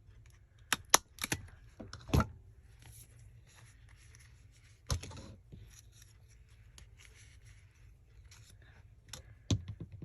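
Paper and craft supplies being handled on a table: a scattering of sharp taps and clicks, the loudest a few seconds in, with light rustling of paper between.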